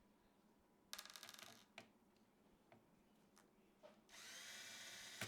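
Small electric screwdriver running in two short bursts, about a second in and again near the end, with a few faint clicks between.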